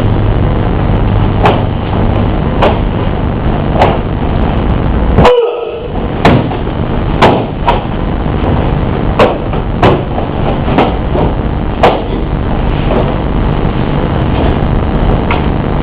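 Sharp knocks and snaps from a bo staff kata being performed, coming irregularly about once a second, over a steady rumbling background noise.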